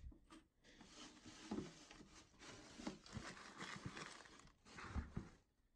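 Thin plastic bin liner rustling and crinkling as a hand pushes rubbish down into the bin, with a few soft knocks, the loudest near the end.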